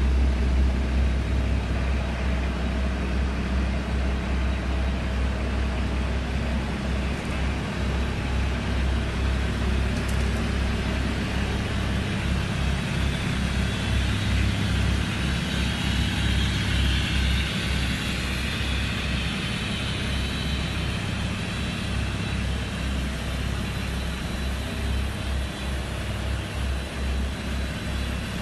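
Several Nissan Patrol Y60 engines idling together as a steady low rumble, warming up in sub-zero cold.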